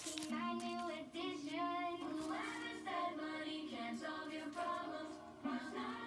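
A song with a high, child-like voice singing held notes over music.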